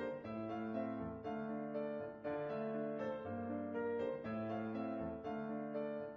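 Background music with held chords that change about once a second.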